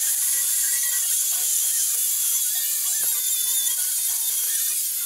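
Angle grinder's abrasive disc grinding into a steel San Mai knife blank held in a vise: a steady, high grinding hiss.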